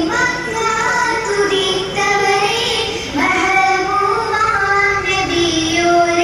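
A child's voice singing a melodic song, holding long notes and sliding between them, in phrases that restart about two and three seconds in.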